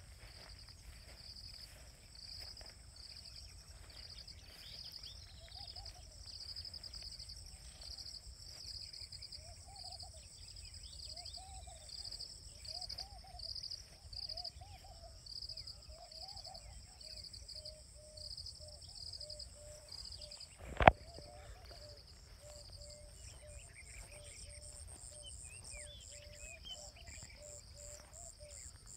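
Insects chirping in a steady, pulsing chorus, with a second, higher insect trill above it. A lower animal call repeats in short notes through much of it. A single sharp knock comes about two-thirds of the way through.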